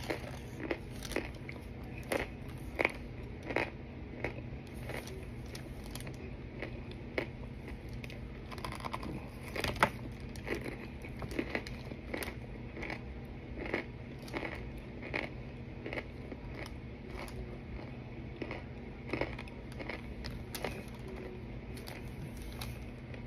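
Someone biting and chewing hard baked Argo cornstarch chunks mixed with baking powder: sharp, crisp crunches about one to two a second, over a steady low hum.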